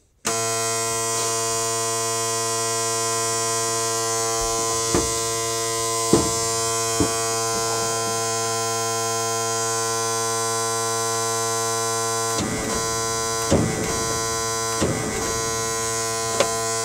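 M35A2 deuce-and-a-half's low-air-pressure warning buzzer, sounding once the ignition is switched on: a loud, steady electric buzz that begins abruptly and holds one pitch. It warns that the air-brake tanks are empty after the truck has stood unused. A few short clicks and some rougher noise from the cab controls come in over it in the second half.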